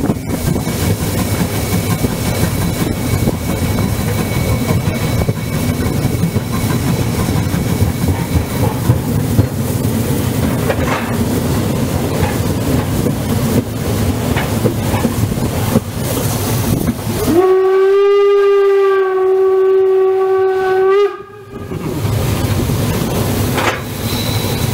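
Narrow-gauge steam locomotive 99 1781-6 running, with a steady rumble. About seventeen seconds in, its steam whistle sounds once, a single steady note held for about three and a half seconds that cuts off sharply, and then the running noise returns.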